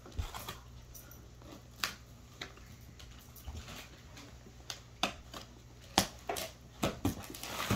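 Hands picking at and scratching the packing tape on a cardboard carton: scattered taps, scrapes and small rips, coming faster and sharper in the last couple of seconds.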